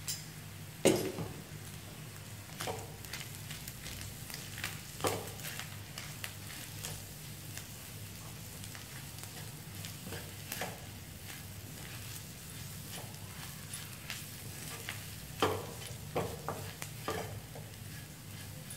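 Wooden spatula stirring onions and chili powder frying in a wok, with a soft sizzle. Scattered sharp knocks of the spatula against the pan, several close together near the end, over a steady low hum.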